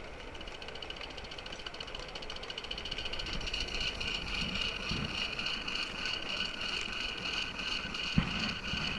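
A 5-inch gauge coal-fired Simplex live-steam locomotive running along the track, its exhaust beats over a steady high hiss growing louder from about three seconds in. A single sharp knock comes near the end.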